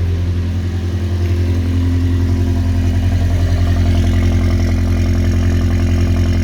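Freshly rebuilt VW Golf engine idling steadily, still cold on its first start after the rebuild, growing a little louder over the first couple of seconds and then holding even.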